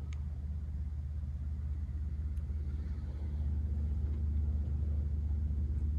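A domestic cat purring steadily, a low, fast-pulsing rumble that grows louder about three seconds in.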